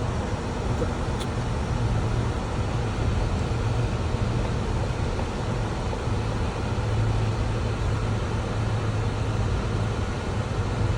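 Car interior noise while driving: a steady low drone with an even road hiss.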